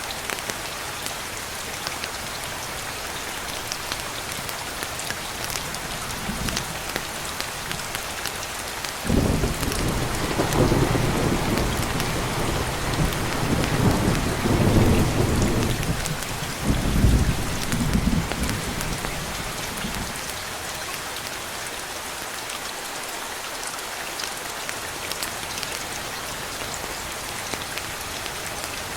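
Steady rain throughout, with a roll of thunder that starts suddenly about nine seconds in, swells in a few surges and dies away about twenty seconds in.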